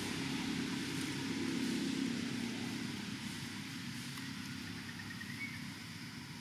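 Low, steady hum of a motor vehicle engine that slowly fades away.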